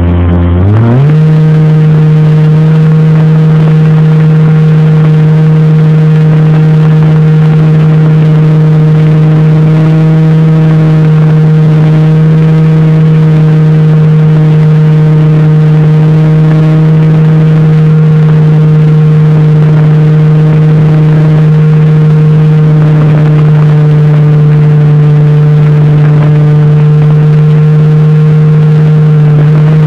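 Brushless electric motor and propeller of an RC model Cessna 182, heard from a phone mounted on the airframe. A loud, steady whine rises quickly in pitch about a second in as the throttle opens, then holds, with a rushing noise underneath.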